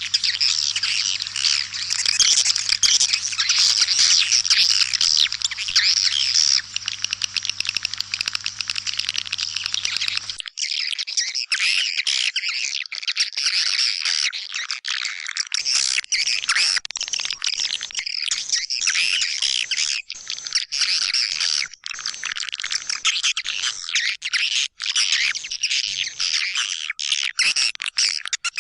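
Swiftlet lure call recording: a dense, continuous chatter of many white-nest swiftlets twittering and chirping together, the 'suara panggil' played in swiftlet houses to draw the birds in. A low hum underneath cuts off abruptly about ten seconds in, where the track is spliced.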